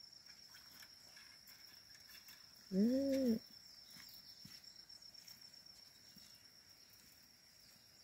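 Steady high-pitched drone of insects such as crickets, with one short low call rising and falling in pitch about three seconds in.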